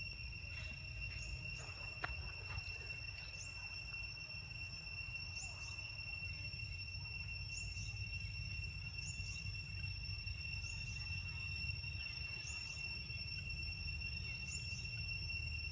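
Outdoor ambience: a steady high-pitched insect drone, with short high chirps repeating every second or so, over a low rumble.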